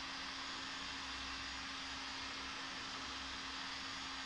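Electric heat gun running steadily: an even blower hiss with a steady low hum, heating a tapered roller bearing so it expands to go onto a lathe spindle.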